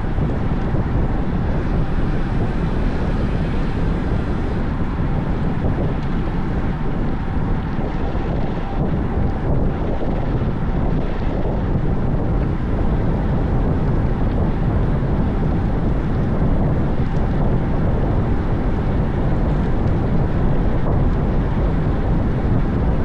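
Steady, loud wind rush on the microphone of a camera carried on a moving road bicycle.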